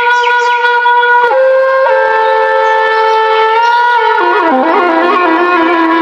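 Background music led by a wind instrument: long held notes that step to new pitches about one and two seconds in, then a quicker, ornamented melody from about four seconds in.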